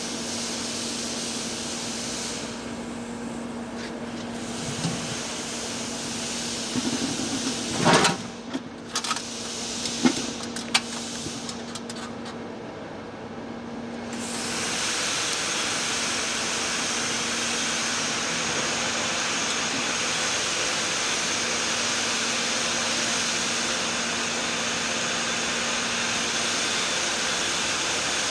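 TIG welding on thick-walled pipe: a steady arc hiss with a faint hum. A few clicks and knocks come about eight to eleven seconds in, and about halfway through the hiss picks up again, louder and brighter.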